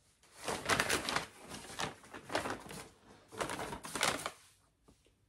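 Brown kraft-paper shopping bag and cardboard box rustling and crinkling as they are shaken and swung about, in several bursts.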